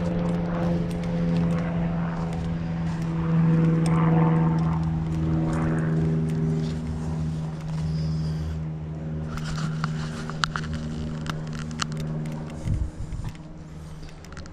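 A steady low engine drone, holding one pitch with a few higher tones above it and easing off slightly in the second half, with scattered clicks and a few thumps near the end.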